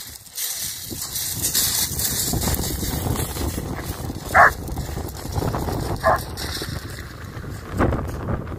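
German Shepherd dog giving two short, sharp barks about a second and a half apart, the first the louder, over a steady low rumble of wind on the microphone.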